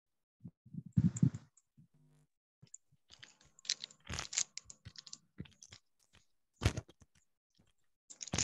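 Irregular clicks, taps and knocks of handling noise over a video-call line, with dead silence between them. There is a cluster of low thumps about a second in, a run of quick clicks in the middle and a sharp click later on.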